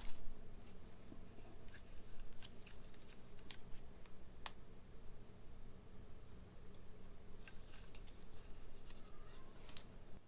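Faint clicks, taps and rustles of hands handling a power cord with a jack plug, with a sharper click about four and a half seconds in and another just before the end.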